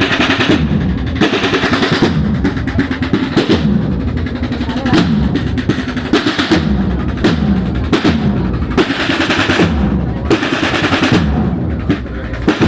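A cornet-and-drum marching band (banda de cornetas y tambores) playing, led by snare drum rolls and bass drum strokes in a steady march rhythm.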